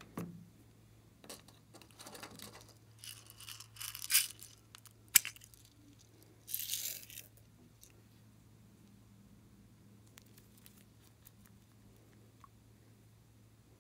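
Handling of plastic containers and slime in a glass dish: light crinkling and rustling, then one sharp plastic click, the loudest sound, about five seconds in. A brief rattling hiss of small plastic pearl beads follows, then only faint ticks of handling.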